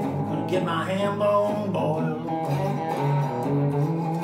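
Chibson Firebird (Chinese copy of a Gibson Firebird) electric guitar played through a cord: picked notes over a held low bass note, a few notes gliding in pitch.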